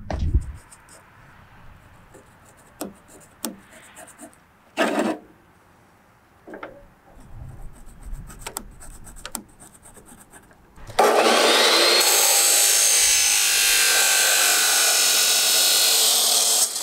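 Power saw cutting a piece of steel angle iron. About eleven seconds in it starts suddenly and runs loud and steady for about six seconds. Before that there are scattered knocks and clicks from handling the metal.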